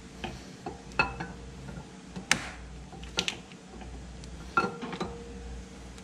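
Steel RPM B3 camshaft being slid by hand into the engine block's cam bearings, its lobes and journals clinking against the bearings now and then. Sharp metallic clinks, several of them, some ringing briefly; the loudest come about a second, two seconds and four and a half seconds in.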